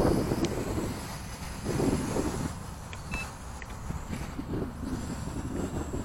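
Gusty wind buffeting the microphone, a rumbling noise that swells and fades, loudest near the start and again about two seconds in.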